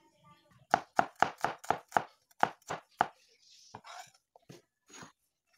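Cleaver chopping a shallot on a wooden cutting board: about nine quick, sharp chops at roughly four a second. They are followed by a short scrape and a few lighter knocks as the blade gathers up the slices.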